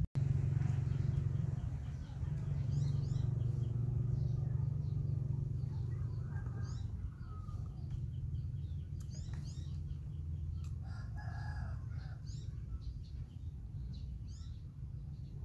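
A rooster crows twice, about six seconds in and again around eleven seconds, while small birds chirp repeatedly and a low steady rumble runs underneath.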